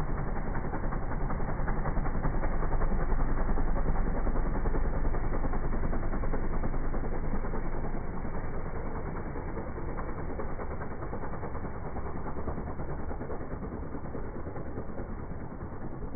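Single-engine propeller plane at full takeoff power, climbing away. The engine and propeller drone is loudest a few seconds in, then fades steadily as the plane draws off.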